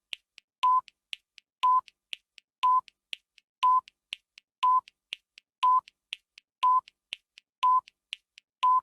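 Countdown timer sound effect: a short beep once a second, nine in all, with fainter ticks in between.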